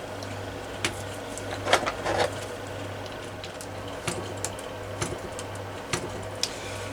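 Scattered light clicks and knocks of hands working a small PAW .29 model diesel engine, over a steady low hum.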